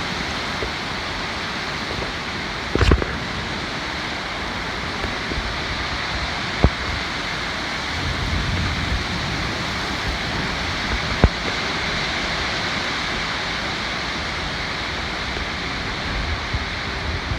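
Steady rushing noise of damaging storm winds, with a few sharp knocks about three, seven and eleven seconds in.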